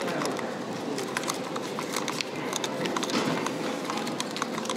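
Scattered light clicks and rustles from paper banknotes being fed into a vending machine's bill acceptor, over the steady hum of a busy terminal hall.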